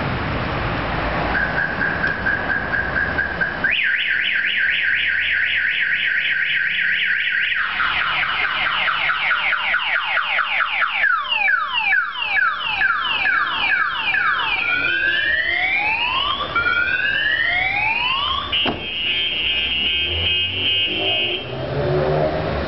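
Car alarm siren set off by a simulated break-in, cycling through its tones: a steady tone, a fast warble, rapid chirps, falling sweeps, slower rising sweeps, then a pulsing beep that stops a little before the end.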